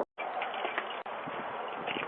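Steady hiss of background noise picked up by a Ring doorbell camera's microphone, thin and muffled, with a few faint clicks.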